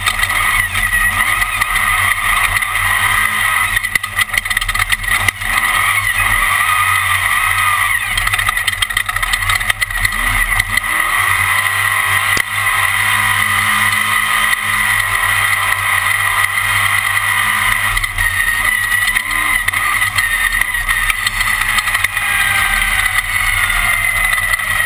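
Class One off-road race car running hard at speed, heard from on board: a loud, steady engine drone with small rises and falls in pitch and occasional knocks from the chassis.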